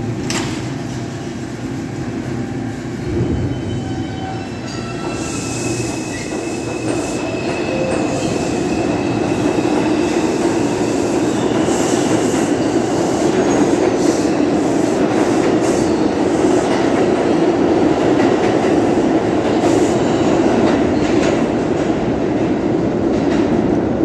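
R142 subway train pulling out of the station and accelerating past: a whine from its electric motors as it starts off, then a steady rumble that grows louder about eight seconds in, with the wheels clicking over rail joints as the cars go by.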